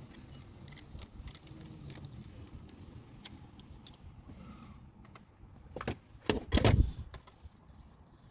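Small clicks and rattles of hand tools and a screw being worked loose to remove a sensor, with a few louder thumps of handling about six seconds in.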